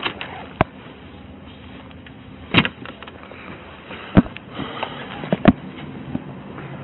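Handling noise on a police body camera as the wearer moves and reaches about: clothing rustle and about five sharp knocks and bumps, over a steady low hiss.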